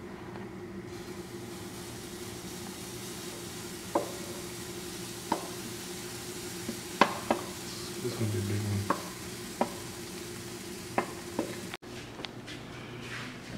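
Pancakes sizzling in a skillet on a gas stove, a steady frying hiss under a low hum, with about seven sharp taps of a utensil against the pan.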